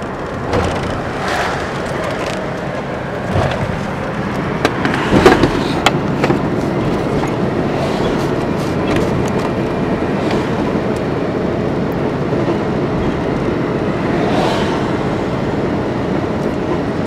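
Steady vehicle and road noise, with a cluster of sharp knocks about five seconds in.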